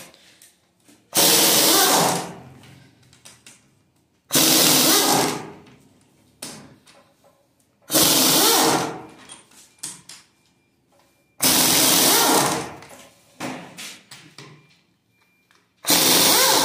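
A power wrench run in five short bursts about three and a half seconds apart, each about a second long and trailing off into small clicks: bolts being spun out of a Toyota 1FZ straight-six's cylinder head.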